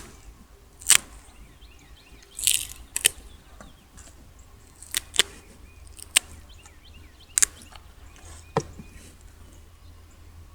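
A series of sharp clicks and taps at irregular intervals, about eight in all, over faint bird chirps.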